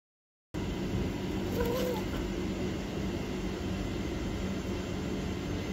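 A moment of silence, then steady outdoor background noise with a low steady hum. A faint short call sounds about a second and a half in.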